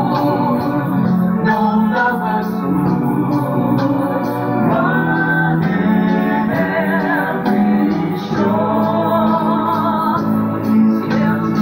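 Live band music: organ chords held under a steady ticking cymbal beat, with some singing.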